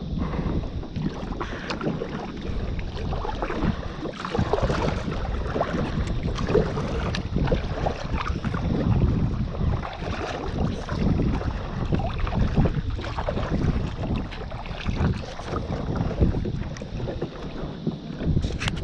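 Kayak on the water with irregular water splashing and sloshing, as from paddling, and wind buffeting the microphone.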